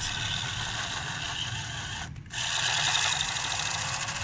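Remote-control toy car's small electric motor and gears whirring steadily as its wheels spin in sand, with a brief break about two seconds in.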